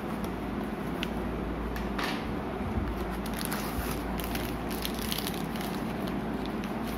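Crinkling of plastic protein-bar wrappers and rustling of a cardboard carton as the bars are pulled out and handled. The crackles grow thickest in the middle and second half, over a steady low hum.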